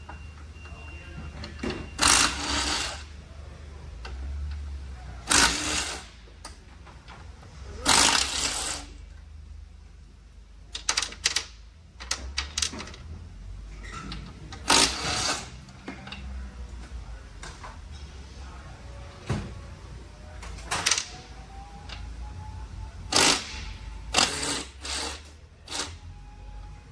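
Irregular metallic clinks and knocks of automatic-transmission parts and hand tools being handled during a teardown, a dozen or so sharp hits at uneven intervals, over a steady low hum.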